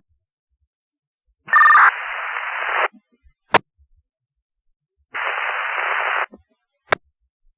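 Fire department two-way radio reply coming through as unreadable static. About a second and a half in, a brief two-tone beep is followed by about a second of hiss and a click. Around five seconds in, there is another second of hiss, then another click.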